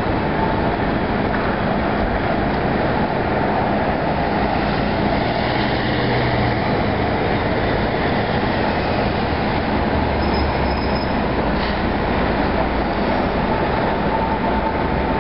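Steady, even roar of trains and street traffic at a busy city railway station.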